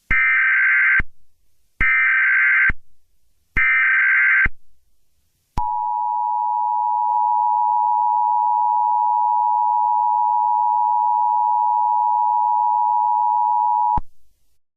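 Emergency Alert System header: three one-second bursts of warbling digital data tones (the SAME header), then the EAS attention signal, a steady two-tone drone held about eight seconds before cutting off abruptly. It marks the start of an emergency alert broadcast.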